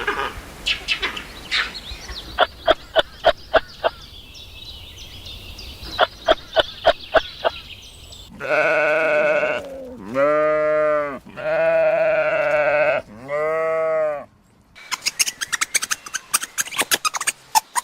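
Farm animal bleating: four long, strong bleats in a row past the middle. Before them come scattered sharp clicks and taps, and near the end a fast run of clicks.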